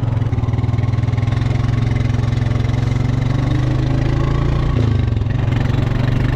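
A farm vehicle's engine running steadily as the vehicle drives along, a loud even low hum.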